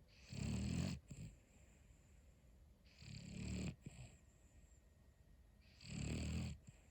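A Boston terrier snoring in deep sleep, the snores sounding human-like: three snores about three seconds apart, each a low rattle with a breathy hiss.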